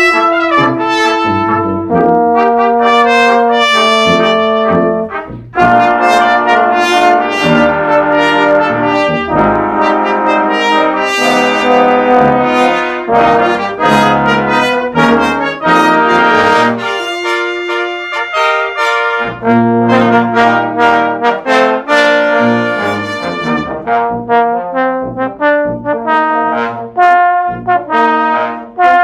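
Brass ensemble playing, with trumpets and trombone. The notes change quickly, with a brief break about five seconds in.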